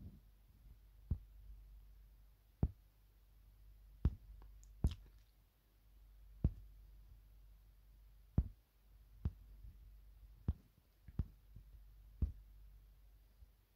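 Fingertips tapping on a smartphone touchscreen: about a dozen sharp, irregular ticks, a second or two apart, over a faint low hum.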